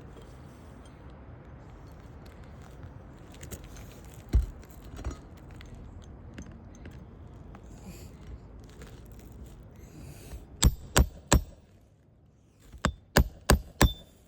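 Hammer driving a roofing nail through asphalt shingles: three quick sharp strikes about ten seconds in, then four more near the end, after a stretch of faint clicks, scraping and a couple of dull thuds.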